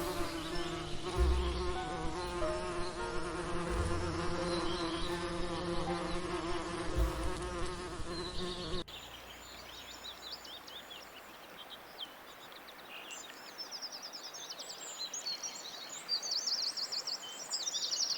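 A flying insect buzzing steadily for about nine seconds. After a sudden cut it gives way to quieter, rapid high-pitched chirping that grows busier towards the end.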